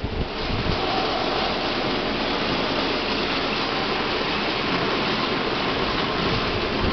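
A steady rushing noise that holds at an even level throughout.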